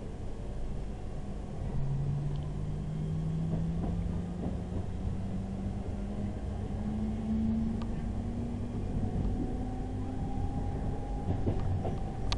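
Inside an electric train pulling away from a station: the traction motors whine, the tone starting about two seconds in and rising steadily in pitch as the train accelerates, over the low rumble of the wheels on the track.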